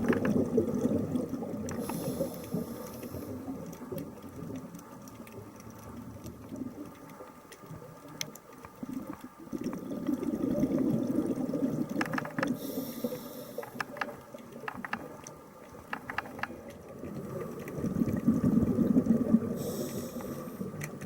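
A scuba diver's regulator heard underwater through the camera housing: three long bubbling rumbles of exhaled air, several seconds apart, each followed by a short hiss of inhalation. Faint scattered clicks run throughout.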